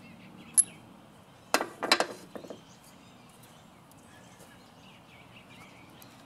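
Sharp metallic clinks of a spark plug socket and a just-removed spark plug being handled: one about half a second in, then a quick cluster around two seconds in. Faint bird chirps in the background.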